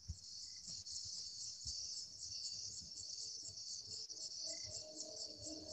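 Crickets chirping at night in a steady, rapidly pulsing high trill, with soft low thumps underneath. Low sustained tones come in near the end.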